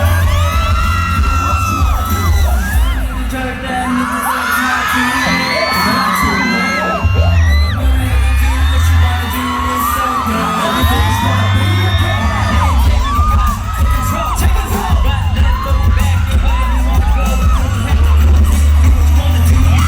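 Live K-pop performance heard from the audience: a pop song with singing over heavy, loud bass, with the crowd cheering and whooping. The bass drops out twice and comes back in.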